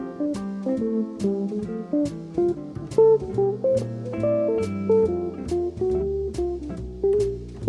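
Musima 1655 guitar played with picked melody notes over low bass notes: a steady run of separate plucked notes, each with a sharp attack.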